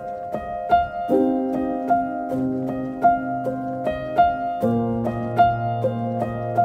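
Background music: a repeating piano-like figure of short struck notes, with held low notes coming in about a second in and changing chord about halfway through.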